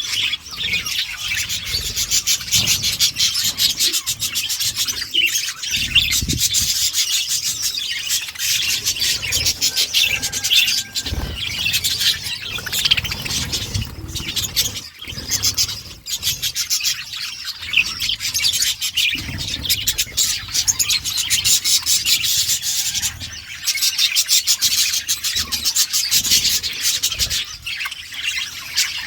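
A flock of budgerigars chattering and warbling together in a continuous, dense stream of high chirps.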